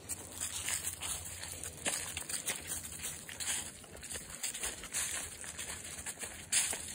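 Footsteps crunching through dry fallen leaves: irregular crackling crunches as a person and a dog on a leash walk over a leaf-covered path.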